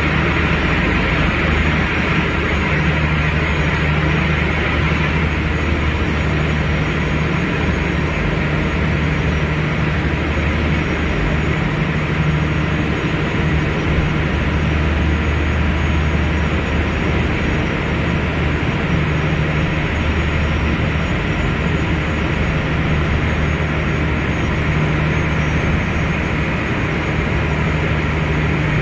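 A boat's engine running steadily with a low hum, under a constant rush of wind and water.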